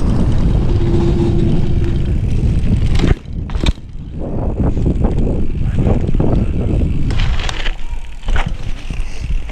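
Mountain bike ridden fast, heard from a GoPro on the handlebars: wind on the microphone and the tyres rolling over a dirt path. About three seconds in the wind noise drops suddenly, and the tyres go on over paving, with scattered knocks and rattles from the bike.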